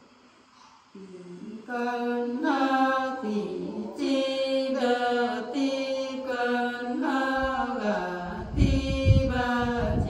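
Unaccompanied women's voices singing a Nùng folk song in long, held, chant-like notes, starting about a second in. A low rumble comes under the singing near the end.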